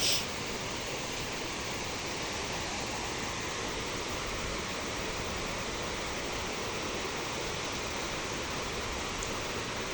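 Steady rush of falling water from a waterfall, an even hiss with no breaks, with a brief sharper hiss right at the start.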